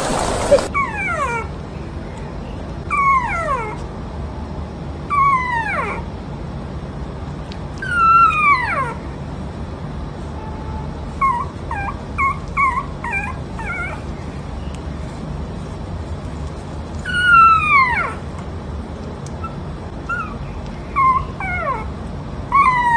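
A puppy asleep on its back whimpering and howling in its sleep: a run of high cries that slide downward in pitch, some drawn out and some short, a second or a few seconds apart.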